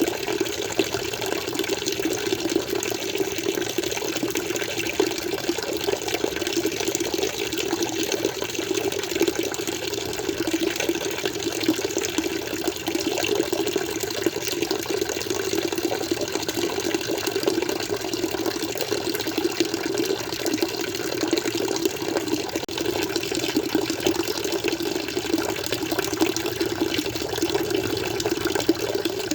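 Water flowing and splashing in a steady, unbroken stream.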